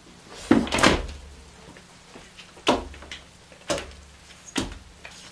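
Sharp slaps on a wooden tabletop as hidden playing cards are thrown down: a loud double slap about half a second in, then three single ones roughly a second apart, each a little quieter.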